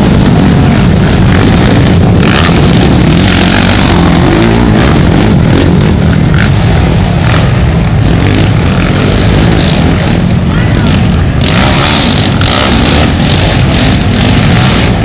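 Racing ATV engines running loud and close, revving continuously.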